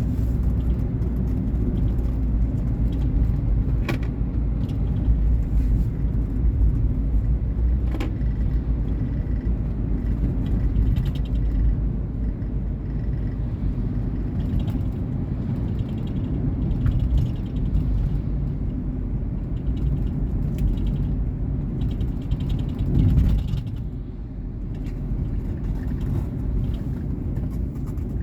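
2019 Volkswagen Polo Vivo driving on the road: a steady rumble of engine and tyre noise, with two light clicks in the first ten seconds and a brief louder swell about 23 seconds in.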